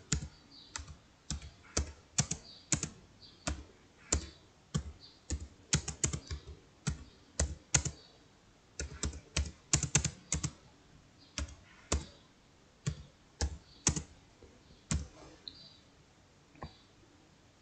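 Typing on a computer keyboard: irregular clicking keystrokes, a couple a second, that stop near the end.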